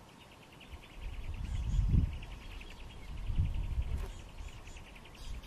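Wild ambience: an insect trills with rapid, even pulses throughout, while a few high bird chirps come and go. Two low rumbles, about one and a half to two seconds in and again at about three and a half seconds, are the loudest sound.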